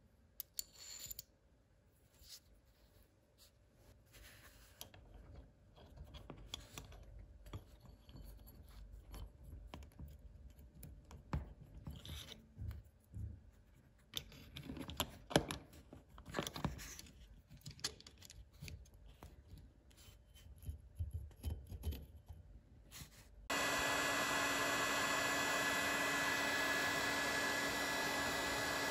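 Hand-tool work: scattered scrapes, clicks and taps. Then, about 23 seconds in, a power tool starts and runs steadily at one pitch for about five seconds before cutting off abruptly.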